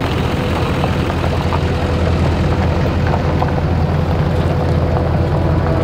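Pickup truck's engine running as it tows a loaded boat trailer slowly past, a steady low rumble with a faint hum and a few light clicks.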